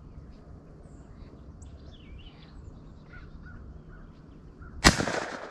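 Quiet outdoor background with faint bird calls, then a single shotgun shot about five seconds in, a sharp crack with a short ringing tail.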